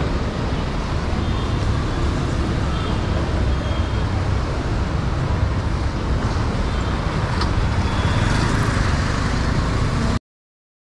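City street traffic noise, a steady rumble of passing vehicles. It cuts off to silence about ten seconds in.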